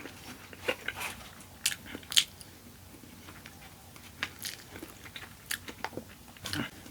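Close-miked eating: wet chewing with scattered crunchy bites and mouth clicks at an irregular pace.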